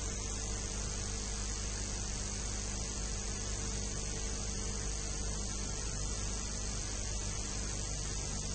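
Steady electrical hum with a constant high-pitched whine and hiss: line noise from the recording equipment, with no speech.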